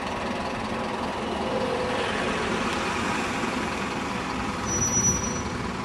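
Bus engines running as a single-deck bus drives off, with steady traffic noise; about five seconds in a car passes close by, with a brief high squeal.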